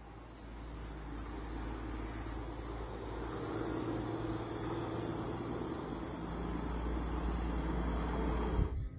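Steady low rumbling roar from an erupting volcano, Fuego, as its ash column billows and ash clouds pour down its flank. The roar grows slowly louder and cuts off suddenly near the end.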